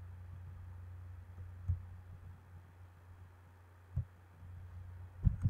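Computer keyboard keystrokes picked up as dull thumps: single presses about two seconds in and four seconds in, then a quick run of keys near the end, over a steady low hum.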